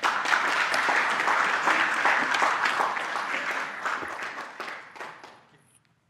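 Audience applauding, fading away about five seconds in.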